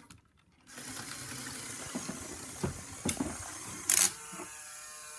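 Lego Power Functions L motor driving the RC car's geared drivetrain, a steady whir that starts about a second in. It is broken by scattered clicks and a sharp knock about four seconds in, then settles into a steady pitched whine.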